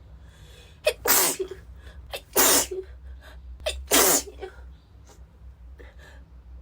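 A woman with a cold sneezing three times in quick succession, about a second and a half apart, each sneeze a sharp catch followed by a loud burst, with quieter breathing after.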